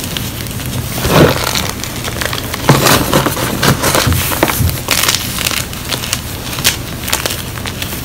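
Pressed gym chalk blocks being crushed and crumbled by hand: dry, irregular crunching and crackling of chalk pieces breaking, with the loudest crunches about a second in and near three seconds.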